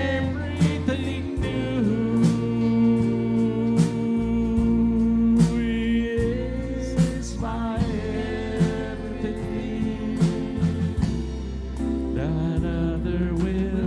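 Live church worship band playing a gospel song: acoustic guitar, drum kit and keyboard with a steady beat, and a voice singing at times.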